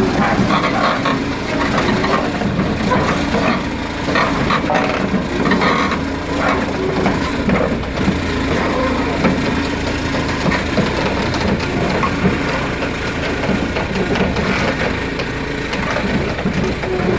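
Cat 308 CR mini excavator's diesel engine running steadily, with frequent irregular clanks and knocks from the machine working.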